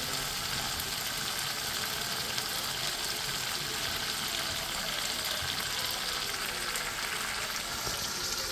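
Tomato-and-spice masala frying in oil in a kadai, a steady sizzle: the masala has been fried until the oil separates.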